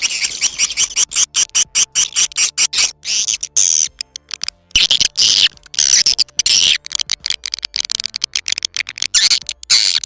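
Recorded swiftlet calls played as a lure sound for swiftlet farming: rapid dry clicks and high twittering chirps, thickening into longer chattering runs about three seconds in and again from about five to seven seconds.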